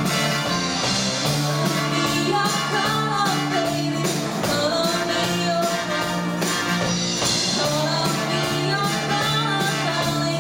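Live rock band with a horn section playing: electric guitars, bass, drum kit and keyboards under trumpets and trombone, with a woman singing lead from about two seconds in.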